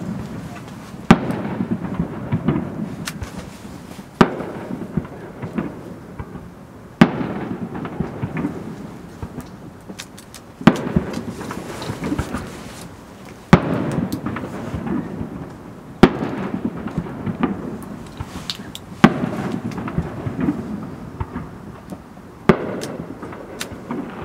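Aerial firework shells bursting one at a time, a sharp bang every two to four seconds, about nine in all. Each bang is followed by a low rumbling tail that dies away, with fainter crackles in between.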